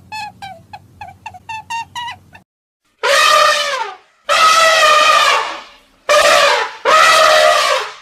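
A quick run of short, high chirping calls stops about two and a half seconds in. After a brief pause an African elephant trumpets four times, loud blasts of about a second each.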